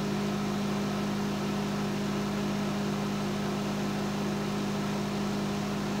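GE countertop microwave oven running, a steady low hum and whir, now working again after its blown 20-amp fuse was replaced.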